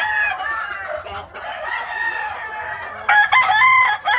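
Gamecocks crowing, one long crow running into the next, with a louder crow starting about three seconds in.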